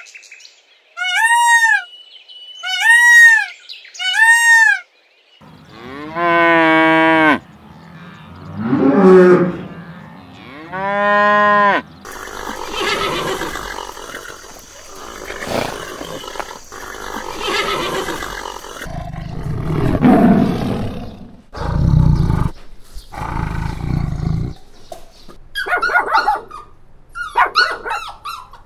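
A run of different animals' calls. It opens with a peacock's loud, arched calls repeated about once a second, then three long drawn-out calls from a larger animal, and near the end small dogs yapping in quick high bursts.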